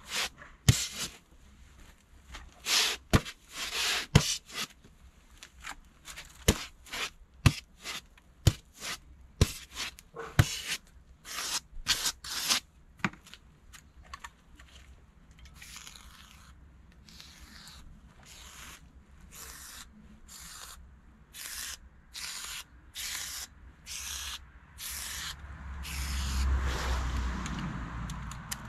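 Expanded polystyrene (EPS) insulation board being cut and handled on an EPS guillotine: a run of sharp knocks and clicks, then short scraping strokes about once a second. A low rumble comes in near the end.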